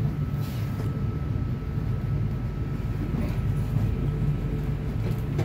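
Steady low hum inside a carriage of the WHOOSH high-speed train while it stands at the platform, with a faint steady high tone above it.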